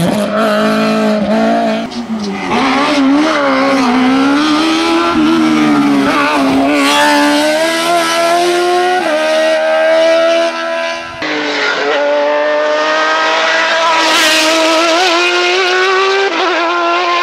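Race car engines at full throttle on a hillclimb, one car after another: each revs high, its pitch climbing and dropping with gear changes and bends. The sound changes abruptly where one car gives way to the next, from a Citroën hatchback rally car to a closed sports prototype to a single-seater.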